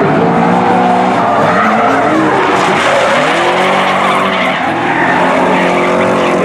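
Drift cars' engines, a BMW E30 among them, revving up and down at high revs, with the tyres screeching as the cars slide sideways in tandem.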